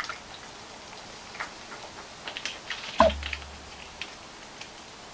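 Faygo Firework soda poured into a glass over whiskey, fizzing with scattered small crackling pops, with one louder knock about three seconds in.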